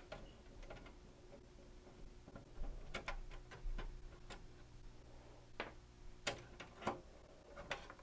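Faint, irregular metallic clicks and ticks as a screw is turned out and a steel expansion-slot cover is worked loose and lifted out of a PC case, with the clicks coming more often in the second half.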